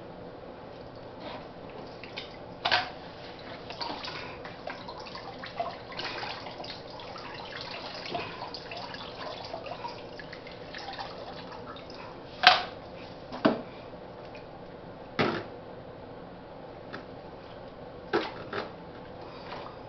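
Scattered knocks and clunks of things being handled, the loudest about midway, over a steady background with water sounds.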